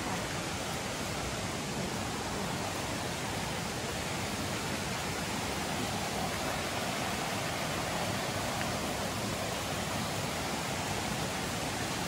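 Steady rushing of a river's flowing water.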